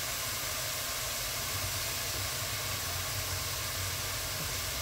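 Ground beef and onions sizzling steadily in a cast-iron Dutch oven on the stove, an even hiss with a low hum underneath.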